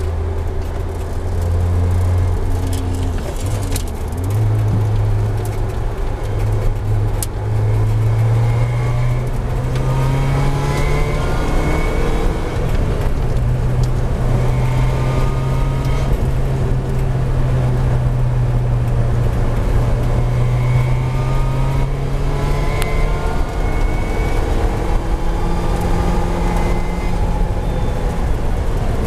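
Lotus Exige Cup 260's supercharged 1.8-litre four-cylinder engine, heard from inside the cabin, accelerating hard. Its pitch climbs and drops back at each gear change.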